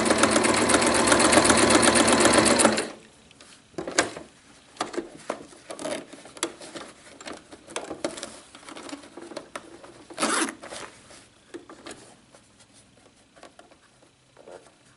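Electric household sewing machine running fast, with rapid even stitching through denim along a zipper, then stopping about three seconds in. After that come light clicks and soft rustles as the fabric and thread are handled, with a brief rustle about ten seconds in.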